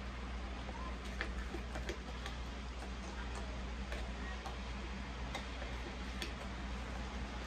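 Hands squishing and mixing wet plantain pudding batter in a glass bowl, with irregular light clicks against the glass. Behind it, a steady hiss of heavy rain outside.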